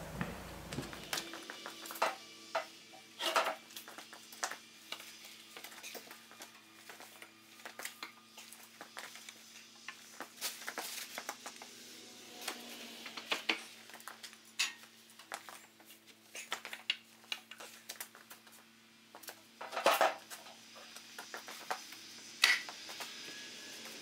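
Irregular wooden clacks and knocks of sticks and boards being handled as sawn live-edge ash slabs are stacked with stickers between the layers. A faint steady hum sits underneath.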